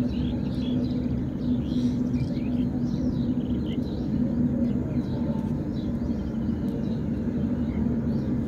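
Small birds chirping repeatedly in the background over a steady low hum.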